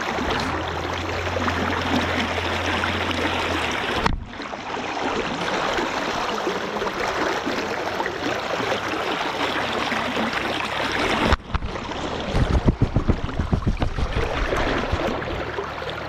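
Fast river current rushing and splashing close by, a steady wash of water noise. It breaks off very briefly twice, about four and eleven seconds in. From about twelve seconds in, a run of low, irregular thumps sits under the rushing.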